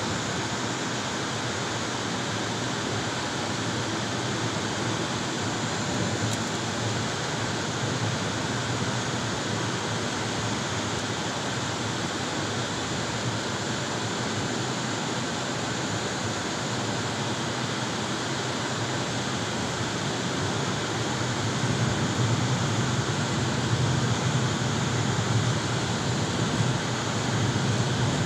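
Steady road and wind noise from a car driving along, with no distinct events, getting a little louder over the last several seconds.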